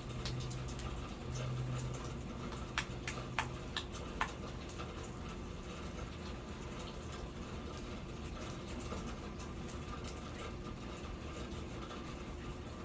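Steady rain falling, with many small drips and patters. A low hum sounds under it for the first few seconds, and a few sharper taps stand out about three to four seconds in.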